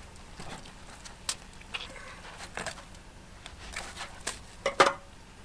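Scattered rustles and sharp clicks from handling freshly caught perch and the plastic sheet they are laid on. The loudest cluster comes near the end.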